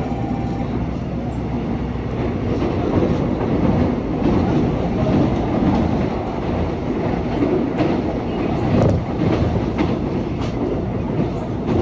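Seoul Subway Line 1 express electric train running at speed, with a steady rumble and the wheels clacking over the track, the clacks coming more often in the second half.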